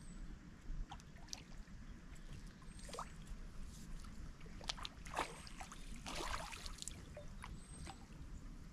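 Faint, irregular splashing and swirling of river water close in at the bank as a hooked barbel is played, over a steady low rumble.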